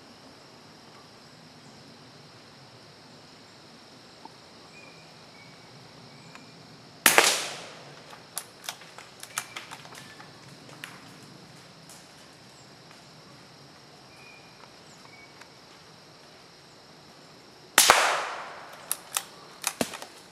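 Two rifle shots about eleven seconds apart, each a sharp crack with a short echo dying away. Each is followed by a scatter of lighter clicks and knocks.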